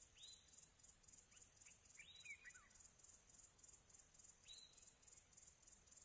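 Very faint nature ambience: a few short, falling bird chirps scattered through, over a steady, faint, high insect trill.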